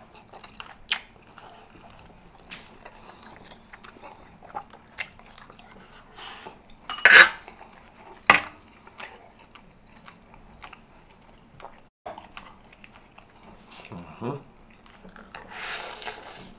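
Close-miked eating sounds: wet chewing and lip smacking, with a fork clicking against the plate while twirling spaghetti. Near the end comes a longer slurp as a forkful of spaghetti is sucked in.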